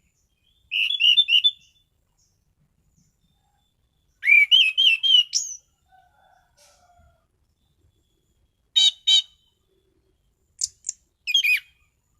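Orange-banded thrush (anis cendana) singing in short phrases of quick, sliding whistled notes, each phrase about a second long with pauses of a few seconds between. Near the end the phrases break into a few single sharp notes.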